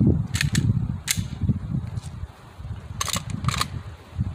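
Clicks and clacks of a gas blowback airsoft pistol and its magazine being handled in a reload: several sharp clicks in the first second and two louder clacks about three seconds in, over a low rumble of wind on the microphone.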